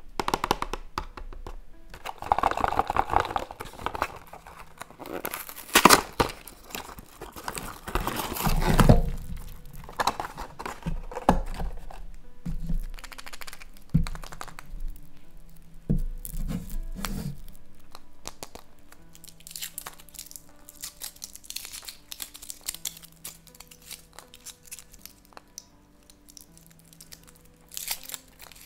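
A cardboard box torn open and handled, its loudest tearing about six and nine seconds in, then the thin metal foil on a chocolate egg crinkling as it is picked at and peeled, with a burst of foil crinkling near the end. Soft background music plays underneath.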